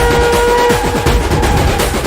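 Background electronic music with a steady beat and held synth tones that drop out about a second in.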